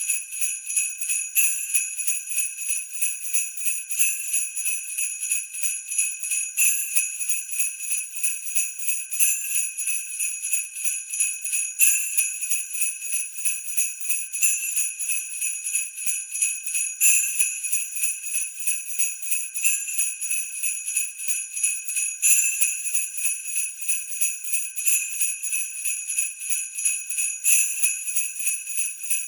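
Sleigh bells shaken in a steady rhythm, jingling continuously, with a stronger shake about every two and a half seconds.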